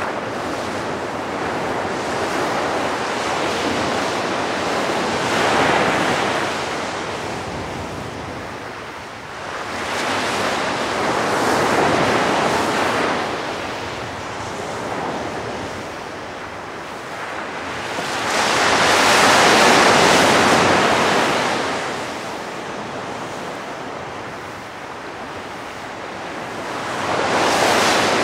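Small waves breaking and washing up on a sandy beach: a steady hiss that swells and fades about every seven seconds, the loudest surge about two-thirds of the way through, with some wind on the microphone.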